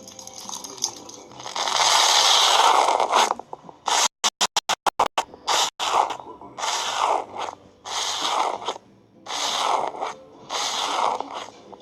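Repeated bursts of scratchy, scraping noise, each lasting about half a second to a second, with a quick run of sharp on-off clicks about four seconds in.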